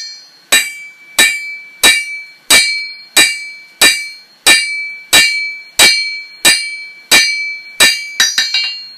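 Steady hammer blows drawing out a hot O1 tool steel bar on an anvil, about one and a half strikes a second, each with a bright metallic ring. Near the end come a few quicker, lighter taps.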